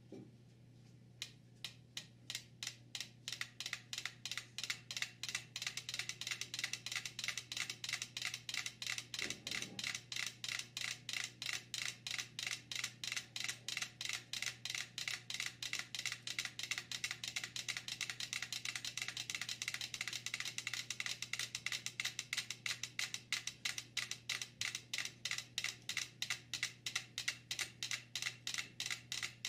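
Five small clockwork metronomes ticking. They are started one after another, so sparse ticks thicken into a rapid, jumbled clatter, and toward the end the ticks gather into a more regular beat as the metronomes synchronise on the board rolling on drink cans.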